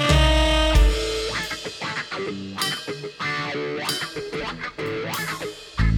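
Live band music: guitar and bass with drums, opening on a heavy low hit, then plucked guitar notes, with the full band coming back in heavily near the end.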